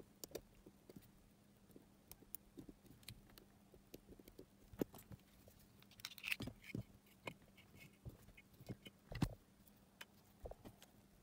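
Faint scattered clicks and scrapes of hard plastic and metal as the end cap of a battery pack's casing is pried open with a nail clipper's file and the cell is slid out of its metal sleeve. The sharpest click comes about nine seconds in.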